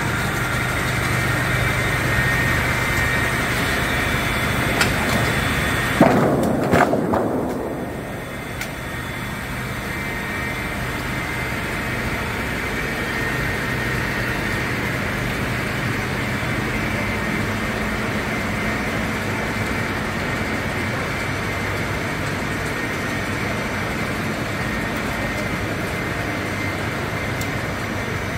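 Two-shaft circular-saw canter (PR Forta 630, two 37 kW motors) running at full feed speed while sawing a log into a beam, with saws, chain feed and conveyors going together. A short loud clatter about six to seven seconds in, after which the noise settles a little lower into a steady run.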